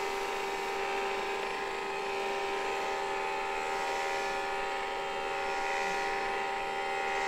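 Small electric vacuum cleaner running with a steady, even hum.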